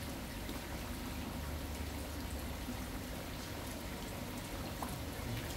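Steady rain with water pouring and trickling, a continuous even hiss.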